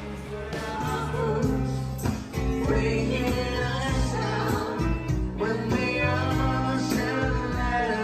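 A live rock band playing a song: a singer over electric guitars, bass and drums. About a second and a half in, the music gets louder with a heavier beat.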